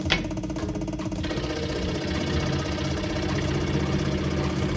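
Pegas scroll saw running steadily at its highest speed, its blade going up and down with a steady mechanical hum. A single sharp click comes just after the start.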